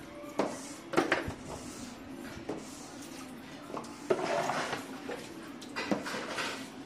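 Plastic bucket and mug knocking and clattering on a tiled floor: a handful of separate knocks spread out, with a short scraping rustle about four seconds in.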